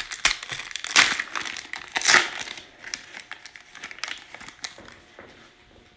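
Foil wrapper of a Panini Prizm basketball card pack crinkling and crackling as it is torn open and handled. The sharpest crackles come about one and two seconds in, and the crinkling dies away toward the end.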